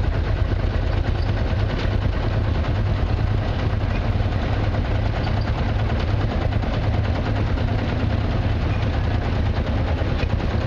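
An old tractor engine running steadily, with a heavy low beat.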